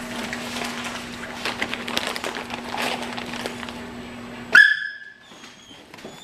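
A dog gives one short, loud, high yelp about four and a half seconds in, after a stretch of small clicks and rustling over a steady low hum.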